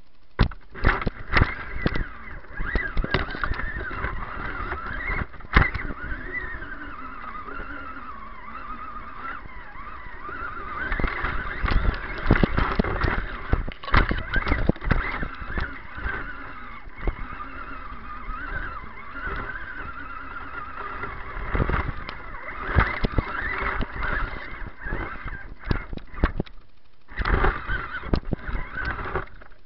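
RC truck's electric motor and drivetrain whining, the pitch rising and falling with the throttle, over knocks and rattles as the truck pushes through brush. It stops briefly near the end.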